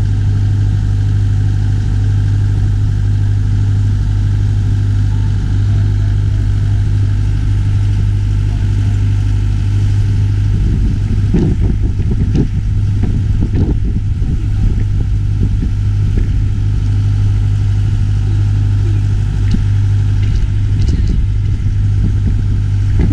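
Motorboat engine running steadily under way, a constant low drone, with water rushing past the hull. A few brief low bumps come about halfway through.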